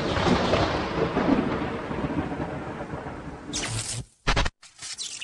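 A thunderclap rumbling and slowly fading, with rain. About four seconds in come a short burst of noise and a sharp hit, followed by a brief moment of silence.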